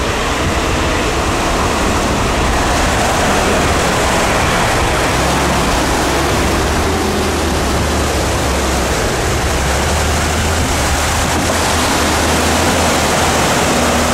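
Steady rush of muddy water churned up as a Chevrolet Niva is towed through a deep flooded rut by a UAZ on a strap, over the low drone of the engines.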